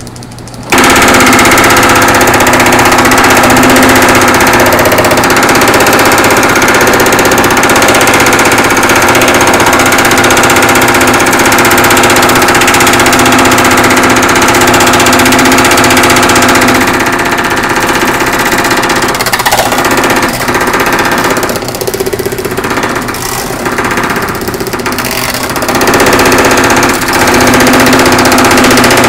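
Whiting Quickwork power hammer running, its ram hammering a sheet-metal panel between the dies. It starts abruptly under a second in, with quieter, uneven stretches in the second half.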